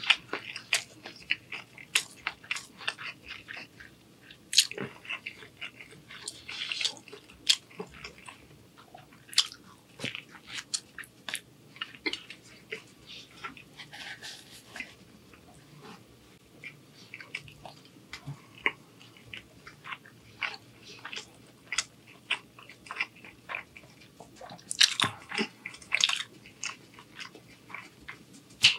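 Close-miked chewing and wet mouth sounds of a person eating shrimp angel hair pasta and crusty bread: irregular smacks and clicks, with a louder, denser patch near the end.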